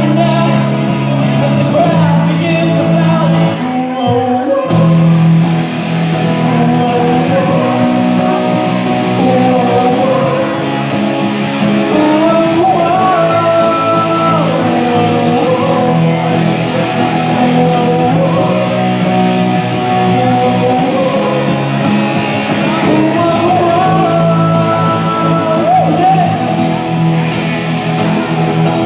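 Live rock band playing a song: singing over acoustic and electric guitars with drums, with a brief break about four seconds in.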